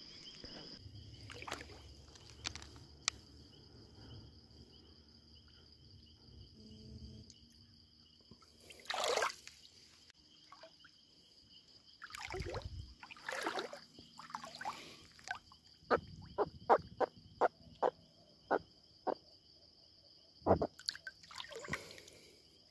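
Crickets trilling steadily in the background while a small catfish is handled: rustles and swishes, a quick run of sharp clicks, then water sloshing and splashing as a hand goes into the river.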